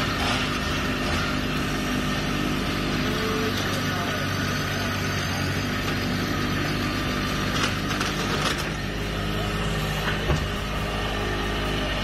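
Chainsaw running steadily at high revs, cutting through the base of a large tree trunk during felling.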